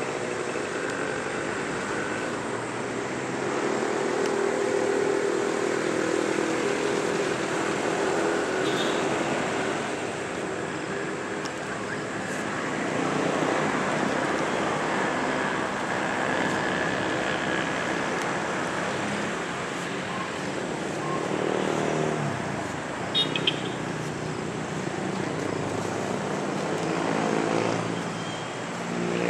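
A vehicle engine running steadily under outdoor background noise, with faint voices in the background.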